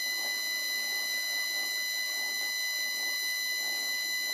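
Vintage Karger lathe drilling a 10 mm hole in a spinning metal workpiece at very low spindle speed, its motor fed by a variable-frequency drive set to 10 Hz. A steady high-pitched whine of several tones sits over a rough cutting noise.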